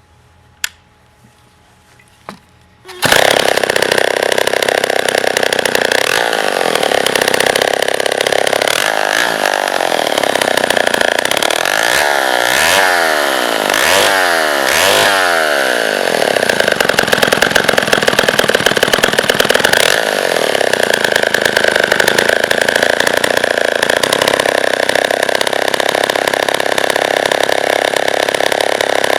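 Vintage Homelite E-Z chainsaw's two-stroke engine: two sharp clicks, then it fires up about three seconds in. It is revved up and down several times, then settles into steady running.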